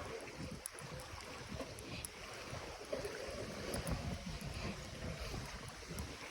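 Seaside ambience on a walk: wind gusting against the microphone over the wash of shallow waves.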